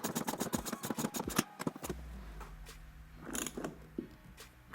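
Ratchet wrench clicking rapidly, about ten clicks a second, as a wheel nut is tightened onto the axle. The clicking stops about a second and a half in, followed by a couple of light knocks.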